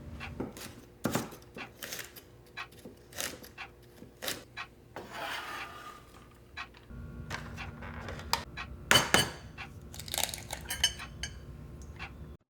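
Kitchen clatter: dishes and utensils clinking and knocking in separate strikes, with a low steady hum coming in about halfway through.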